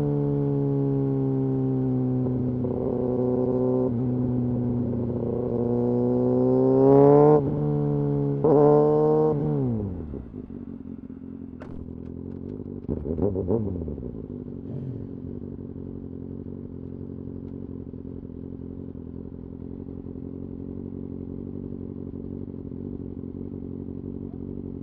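Kawasaki Ninja ZX-6R's inline-four engine running at a steady pitch, then revving up sharply twice with a short break between, before falling away to a quieter steady low note about ten seconds in. A few seconds later there is one brief rev that rises and drops back.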